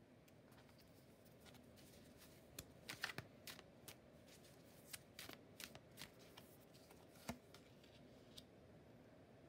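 Tarot cards being drawn from the deck and laid down on a wooden table: a scattered run of light card snaps and taps, loudest about three seconds in and again near seven seconds.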